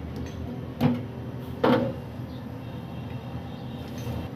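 Two metal clanks of stainless steel cookware about a second apart, the second ringing briefly, as a pot lid is lifted off the syrup pan and set down on the gas stove. A steady low hum runs underneath.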